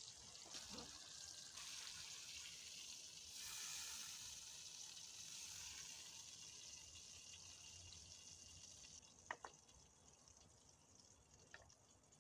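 Steak sizzling faintly in a hot frying pan set down off the fire, a soft steady hiss that fades over the last few seconds. Two light clicks near the end.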